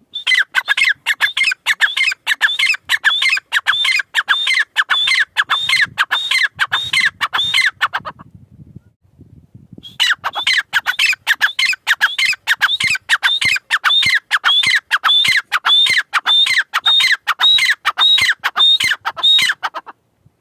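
Gray francolin calling: a loud, fast series of sharp, repeated high notes, about four a second. It breaks off for about two seconds midway, then resumes.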